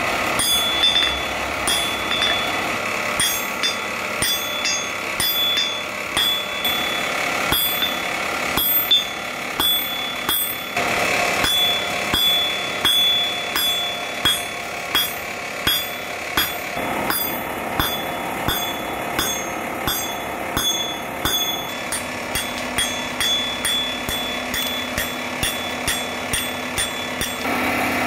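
Hand-hammer blows on a red-hot steel file on an anvil, forging it into a knife, at a steady pace of one and a half to two blows a second and quicker near the end, each with a short high ring from the anvil. A steady background hum runs underneath.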